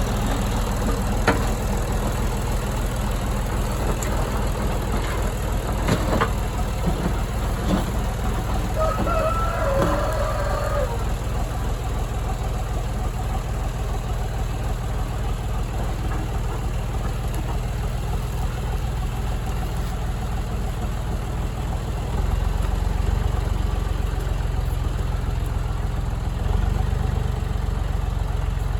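An engine running steadily with a low rumble that gets louder about 22 seconds in, with a few sharp knocks in the first eight seconds.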